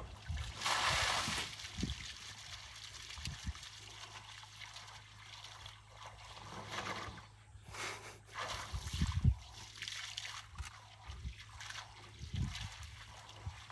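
An African elephant drinking from a shallow muddy puddle, its trunk drawing up and splashing water in irregular trickles and sloshes. A few low thumps come in among the splashes, the loudest past the middle.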